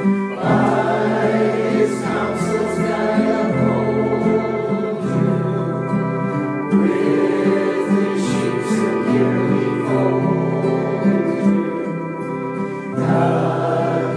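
Closing music: a hymn sung by several voices over held chords that change every second or so.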